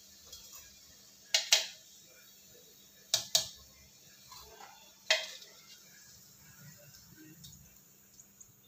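Sharp clinks of a utensil knocking against a plate or pan: two quick clinks about a second and a half in, two more about three seconds in, and a single one about five seconds in, each ringing briefly.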